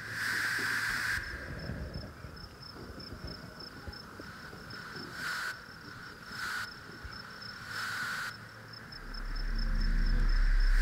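Crickets chirping in a steady, regular pulse, with a few short bursts of hiss. About nine seconds in, a low hum swells up and grows steadily louder.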